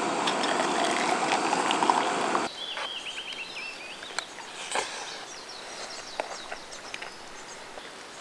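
A steady hissing rush cuts off abruptly about two and a half seconds in. Quieter outdoor sound follows, with a quick run of short, falling chirps just after the cut and a few light clicks.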